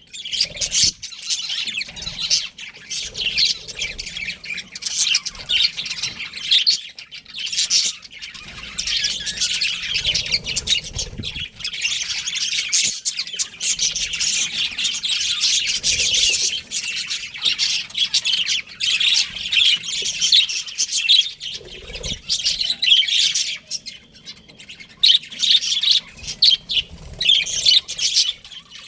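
A group of budgerigars (budgies) chirping and chattering continuously, many high calls overlapping.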